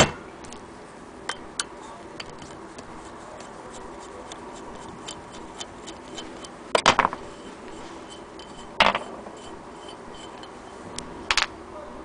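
Cast-iron hand-crank wheel of a Willcox & Gibbs sewing machine being turned and handled on its wooden base, giving light irregular mechanical clicks and ticks, with a few louder knocks.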